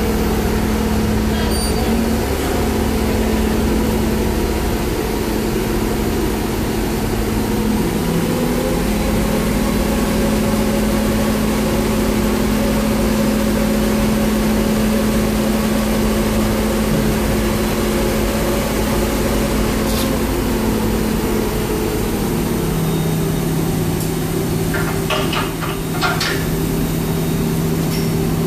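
A heavy engine running steadily under load. Its speed rises about eight seconds in and drops back about three-quarters of the way through. A few short metallic clinks come near the end.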